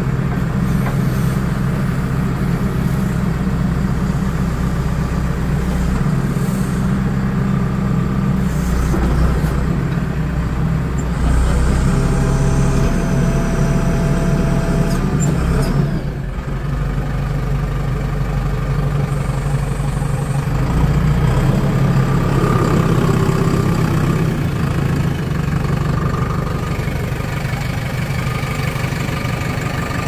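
JCB 3DX Eco Xcellence backhoe loader's four-cylinder diesel engine running steadily, heard from inside the cab. It gets louder with a faint whine for a few seconds around the middle, dips briefly, then settles back to steady running.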